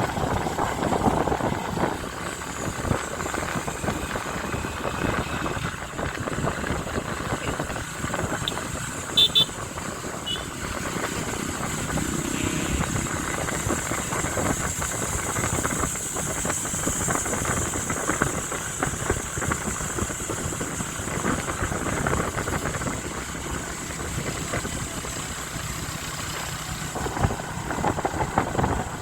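Motorcycle riding along, its engine and road noise mixed with a steady rush of wind on the microphone. A brief sharp high-pitched sound comes about nine seconds in.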